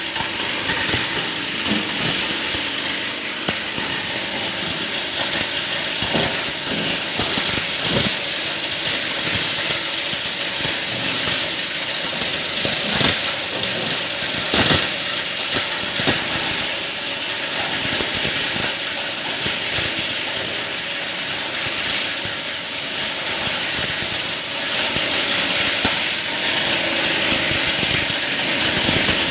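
Plastic scrap grinder running with a steady whirr and frequent sharp cracks and clatter as plastic pieces are chopped.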